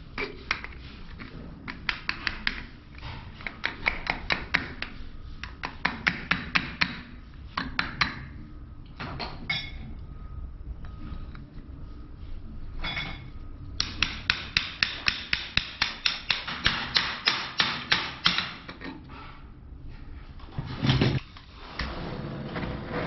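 Runs of quick, light hammer taps on a copper pipe and coupling being fitted together, about four or five taps a second, with pauses between the runs and a duller knock a little before the end.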